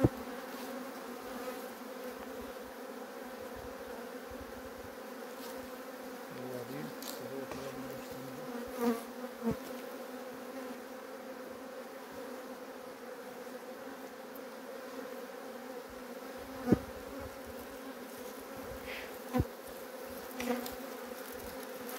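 Honeybees humming over an open hive: a steady drone of many bees, with a few brief sharp knocks, the loudest about three quarters of the way in.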